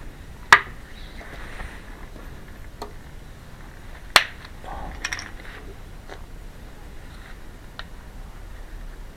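Hand tools clinking and knocking against metal during work on a scooter's GY6 gearbox: two sharp knocks, about half a second and about four seconds in, with a few lighter clicks between and after.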